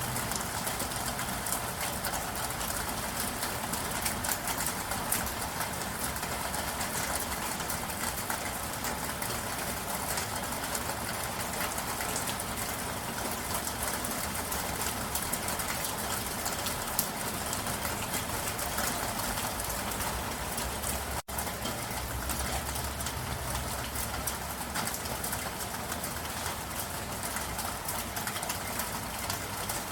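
Steady rain, a dense patter of small drops, with a low rumble underneath. The sound cuts out for an instant about two-thirds of the way through.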